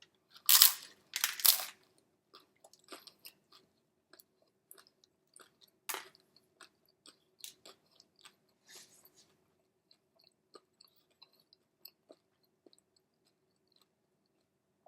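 A person biting into and chewing a crunchy hard-shell taco: two loud crunches in the first two seconds, then smaller crunching chews that thin out toward the end.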